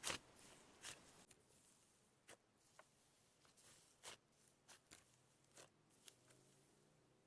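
Faint, scattered sticky clicks and pops of slime being squeezed and poked. The loudest click is right at the start, and softer ones follow about a second apart.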